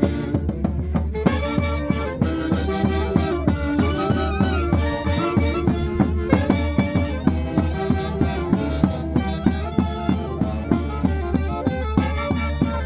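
Peruvian folk band music: a melody on wind instruments over a steady beat of about two accents a second.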